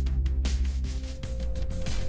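AI-generated background music with a heavy bass and a steady beat; a sustained note comes in a little past the middle.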